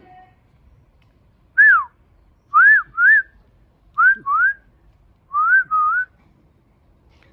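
A person whistling to call dogs: seven short, rising-then-falling whistled notes, a single one followed by three quick pairs, with short pauses between.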